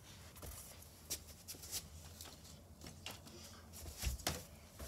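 Faint, scattered knocks, clicks and rustles over a low, steady room hum, with a slightly louder knock about four seconds in.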